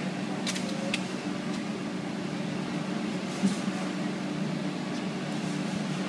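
Steady mechanical hum, like a running fan or motor, with a couple of faint clicks about half a second and a second in and a single short knock about three and a half seconds in.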